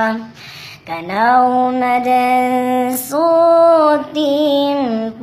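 A single voice singing a sung Islamic chant (sengal), holding long steady notes and sliding between them, with a short breath about half a second in.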